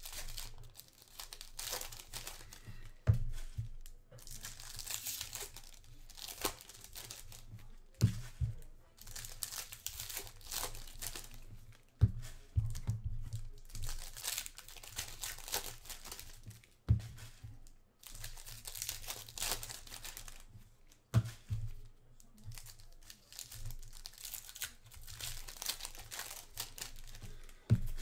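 Foil trading-card pack wrappers being torn open and crinkled by hand, in repeated stretches, with a sharp thump every four or five seconds.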